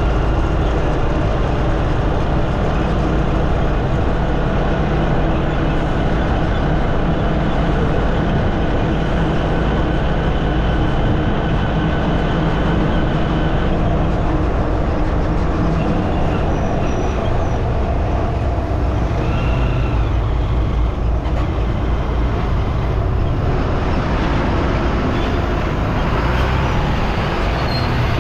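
Steady road noise heard while riding through city traffic: a vehicle engine hum under a heavy low wind rumble on the microphone, with the steady engine tones fading about halfway through.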